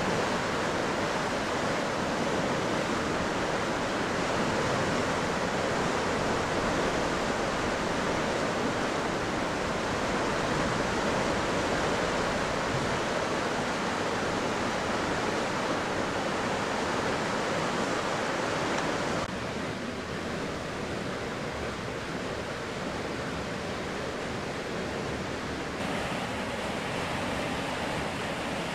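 Steady, even rushing noise that drops a little in level about two-thirds of the way through and shifts again near the end.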